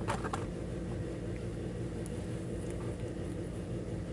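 A steady low hum running throughout, with a few light clicks about the first half second in.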